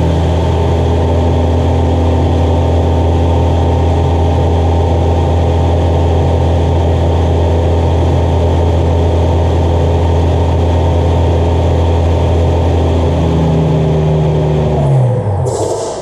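Tesla electric motor in a washing machine, driven by a frequency converter, running the drum at a steady high speed with a loud, constant hum and whine. About thirteen seconds in, the pitch falls as the motor slows down, and a brief hiss follows near the end.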